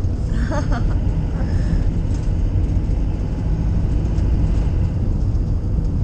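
Car driving along a road, its steady low engine and tyre rumble heard from inside the cabin.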